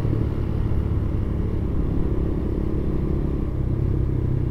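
Motorcycle engine running at a steady cruise, mixed with road and wind rumble, heard from the rider's position.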